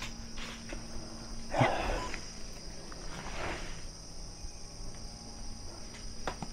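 Night insects trilling steadily on a high pitch, with two short hissing noises about a second and a half and three and a half seconds in.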